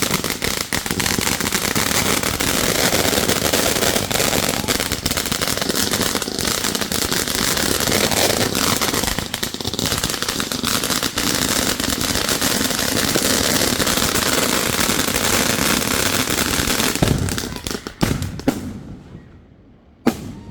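Fireworks crackling and popping in a dense, continuous volley, followed near the end by a few separate loud bangs as the display dies away.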